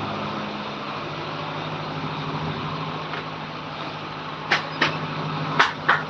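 A steady low mechanical hum, like an engine or motor running, with four sharp clicks or knocks near the end, in two quick pairs.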